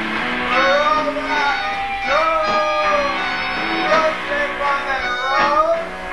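Live band music: guitar with a voice singing a gliding melody over it.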